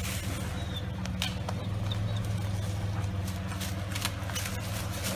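Jeep Wrangler LJ Rubicon's 4.0-litre inline-six running steadily at low revs as it crawls over rocks. A few light clicks and faint high chirps sit over it.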